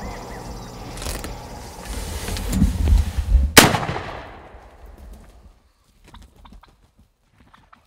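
A single pump-action shotgun shot, fired from inside a fabric hunting blind, about three and a half seconds in. It fades away over a second or so. Just before it there is a low rumble.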